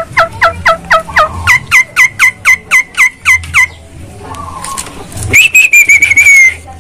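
Caged Javan myna calling: a fast run of short falling notes, about four a second, for the first three and a half seconds, then, after a brief pause, one long wavering whistle.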